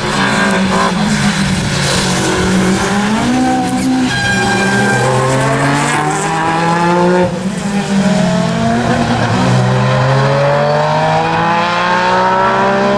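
Rally car engine revving hard under acceleration, its pitch climbing. About halfway through it briefly cuts and drops, as at a gear change or a lift off the throttle, then climbs again.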